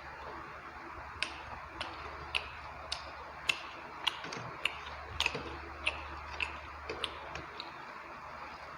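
Close-miked chewing of rice and chicken curry: sharp, wet mouth clicks in a steady rhythm, a little under two a second.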